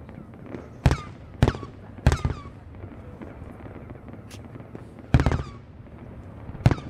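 Aerial firework shells bursting in a display: five sharp booms, three in the first two seconds and two more later, each with a short echoing tail.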